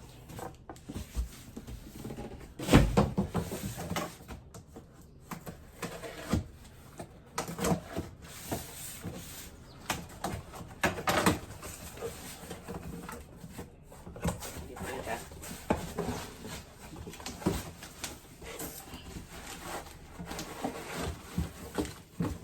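Irregular handling noises as new cookware is unpacked: rustling packaging and short knocks and clicks, with one louder knock about three seconds in.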